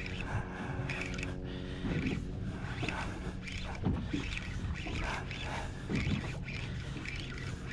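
Steady low mechanical hum from the boat, with water slapping against the hull every second or two.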